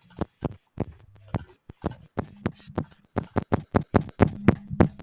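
A sound clip from Scratch's sound library played back after the 'softer' effect: a fast, beat-like run of sharp percussive hits, with a steady low tone joining from about two seconds in.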